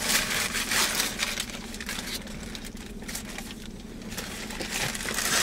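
Paper sandwich wrapping rustling and crinkling as a sub is unwrapped by hand, louder at the start and again near the end.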